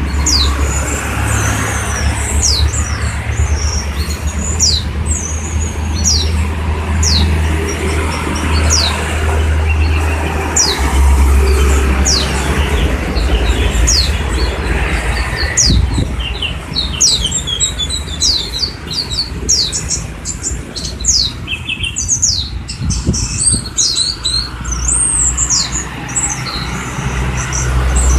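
Young songbirds chirping: many short, high, quickly falling notes from several birds, busiest in the second half, over a steady low rumble.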